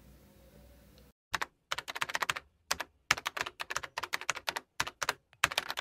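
Keyboard typing: quick sharp clicks in irregular runs, starting about a second in.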